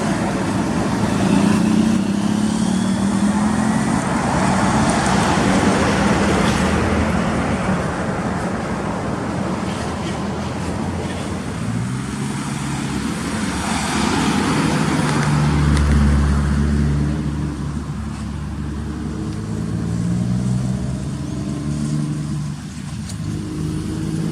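Scania truck's diesel engine pulling hard under load, its note shifting up and down in steps, over steady road noise that swells about halfway through.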